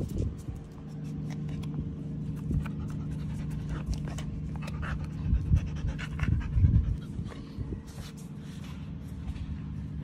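A short-haired dog panting close by, over a steady low hum, with scattered short clicks and a few louder bumps a little past the middle.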